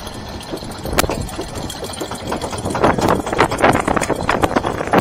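Interpark Bullet Train roller coaster car being hauled up the chain lift hill with a steady mechanical clatter and one sharp clack about a second in, then the car rattling louder and more unevenly over the track as it crests and runs onto the top curve.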